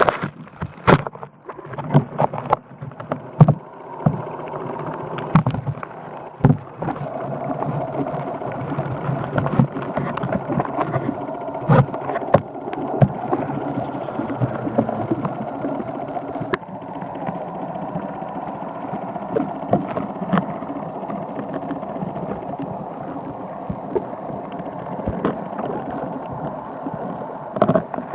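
Grey diving beetles (Eretes griseus) heard underwater: a steady, low, moo-like drone with scattered clicks and knocks, the knocks thickest in the first few seconds.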